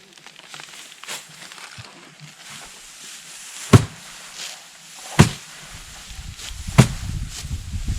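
Three sharp, loud blows struck one at a time, about a second and a half apart, with faint knocking and rustling between them.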